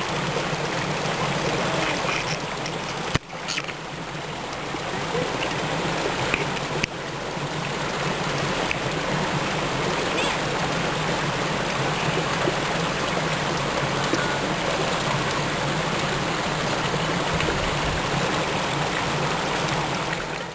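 Steady rushing, water-like noise with no clear pitch. It dips sharply for a moment about three seconds in, and there is a smaller break near seven seconds.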